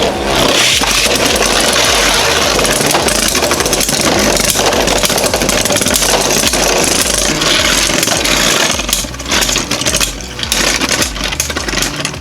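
Two Beyblade spinning tops, a 3D-printed Jynx Ouroboros and a Metal Union Spriggan, whirring in a plastic stadium with rapid clicks and knocks as they clash repeatedly. The round ends in a spin finish, one top running down and stopping.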